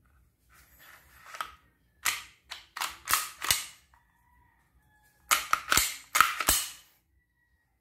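WE G34 Gen 4 gas blowback airsoft pistol worked by hand with its magazine out: its slide and trigger mechanism giving two clusters of sharp clicks and snaps, one about two seconds in and one about five seconds in. No gas is fired.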